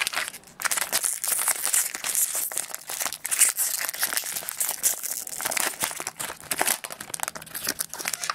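Foil wrapper of a 30-card Topps baseball jumbo pack crinkling as it is torn open and pulled apart by hand: a continuous run of sharp, dense crackles from about half a second in.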